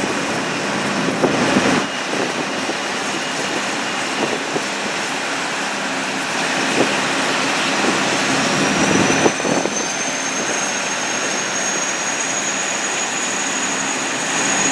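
Steady jet aircraft noise across an airport apron, with a high whine that rises in pitch from about halfway through and then holds.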